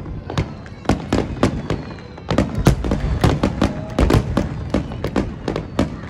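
A fireworks barrage: aerial shells bursting in quick, irregular succession, several sharp bangs a second over a low rumble.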